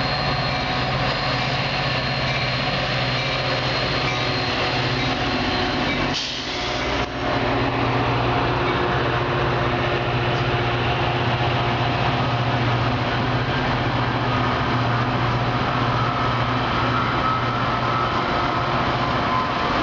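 Metra bilevel commuter train rolling slowly past as it arrives and slows: a steady rumble of wheels on rail over a low drone, with a thin high squeal joining in the second half.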